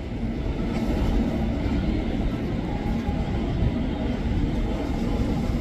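KRL electric commuter train standing at the platform with its doors open, giving a steady low hum from its running equipment.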